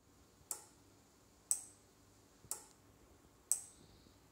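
Electromechanical relay module clicking sharply, four times at one-second intervals, as it switches an LED lamp on and off in a blink loop.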